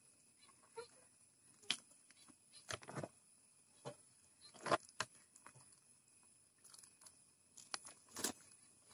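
Pigeons feeding on a dirt floor: scattered sharp taps of beaks pecking at grain, mixed with brief wing flutters, irregular and spaced about a second apart.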